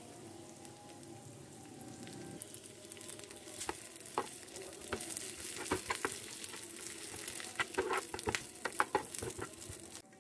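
Chopped nuts, melon seeds, raisins and grated coconut sizzling as they fry in a non-stick pan, stirred so that pieces click and knock against the pan, the clicks coming thicker in the second half.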